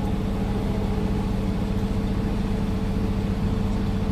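Concrete mixer truck's diesel engine running steadily, with a constant low hum over the engine rumble.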